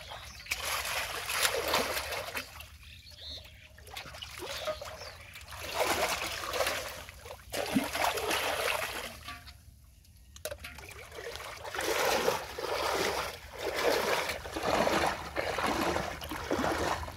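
Shallow water splashing and swishing as someone wades through it, pushing a metal pot along and plunging a bare hand into the water, in repeated bursts with short quieter pauses.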